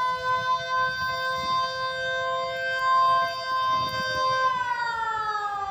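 Outdoor civil defense warning siren sounding a steady, multi-pitched tone; about four and a half seconds in, its pitch starts to slide down.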